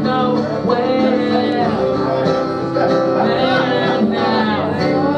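Acoustic folk-country music played on plucked string instruments, with guitar to the fore.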